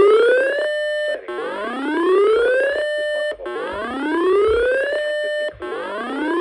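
Electronic alert siren tone from an emergency alert broadcast: a whooping tone that rises in pitch for about a second and a half, holds for about half a second, then breaks off and starts again, repeating about three times.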